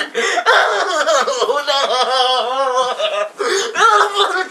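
Loud, high-pitched laughing.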